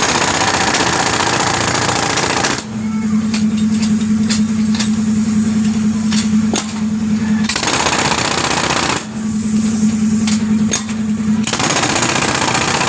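Pneumatic jackhammer with its air hose, its chisel bit hammering into a concrete lane surface in three bursts: at the start, again about two-thirds through, and near the end. Between the bursts a steady hum carries on, with scattered sharp clicks.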